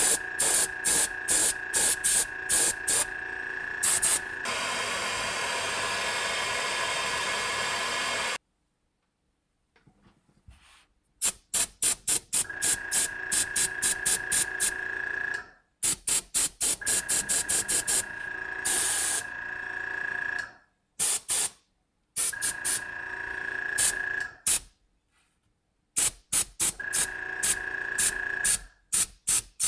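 Airbrush spraying paint onto a balsa crankbait: short hissing bursts of air and paint, a few a second, with one longer continuous spray near the start and several pauses. A steady high whine runs under much of the spraying.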